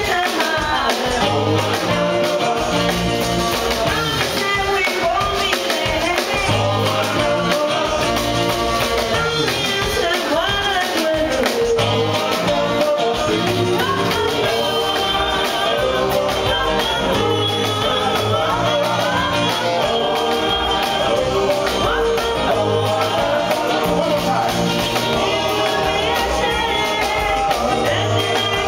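Live rock and roll band: a woman and a man singing together over drums and upright double bass.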